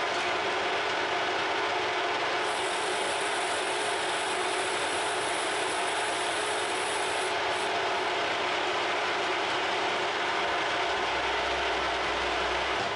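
Harrison M300 geared-head lathe running steadily with a continuous mechanical whir from its headstock gearing, while a turning tool cuts a brass bar in the chuck.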